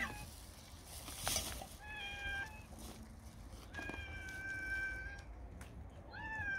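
Stray cats meowing at feeding time: four drawn-out meows, the longest about four seconds in and lasting over a second. A single short click comes about a second in.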